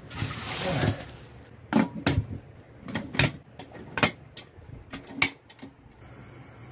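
A steel resin-casting pressure pot being closed: a scraping rustle as the plastic-wrapped bucket is pushed down into the pot, then a run of sharp metal clanks as the lid goes on and its wing-nut clamps are swung up and tightened.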